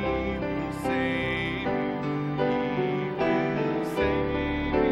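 A hymn played on piano, with the congregation singing along.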